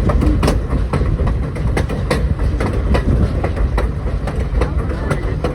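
Passenger train rolling along the track: a steady low rumble with frequent, irregular clicks and knocks from the wheels passing over the rails.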